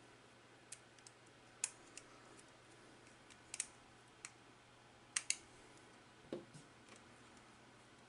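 Sparse, faint clicks and taps of a small screwdriver on the terminal screws of a plastic push-button contact block as wires are connected, with a sharp double click a little past five seconds and a duller knock about a second later.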